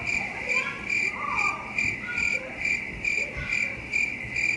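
Cricket chirping sound effect: even, high chirps repeating about twice a second, the kind used for an awkward silence. Faint voices sit underneath.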